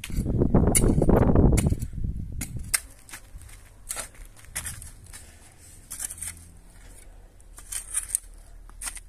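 Metal shovel digging into dry, hard soil: irregular crunching and scraping strokes about once a second. A loud low rumble fills the first two seconds.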